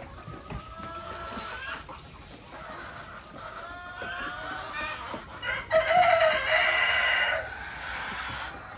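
A flock of local desi chickens clucking and calling while they feed, with a rooster crowing loudly for nearly two seconds from about five and a half seconds in.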